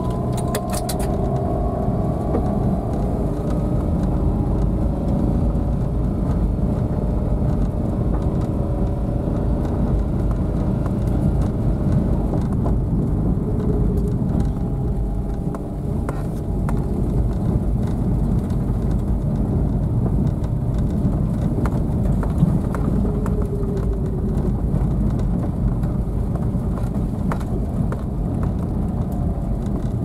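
A car driving slowly over a rough dirt track, heard from inside the cabin: a steady low rumble of engine and tyres, with scattered clicks and knocks from the uneven surface. The engine note climbs slightly in the first few seconds.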